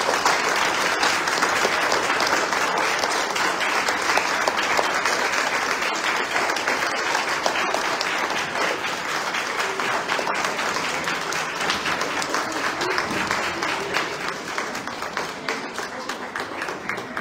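Audience applauding: dense, steady clapping that thins out and grows quieter over the last few seconds.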